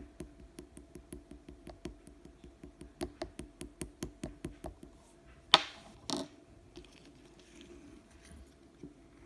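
Rapid light tapping, about five taps a second for roughly four to five seconds, then a sudden louder rustling or scraping noise and a second shorter one just after it, followed by a few faint handling sounds.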